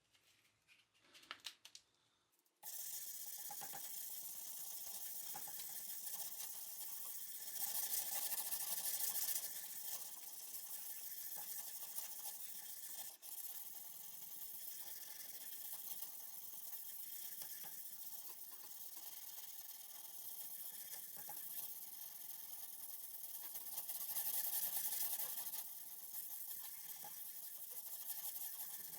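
Hand sanding a hardened steel blade with 220-grit sandpaper, working out grinder scratch lines: a steady scratchy rubbing that starts about three seconds in, after near silence, and grows louder twice.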